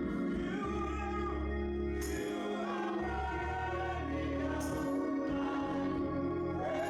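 Church choir singing a gospel song with instrumental accompaniment, sustained chords over a steady bass line.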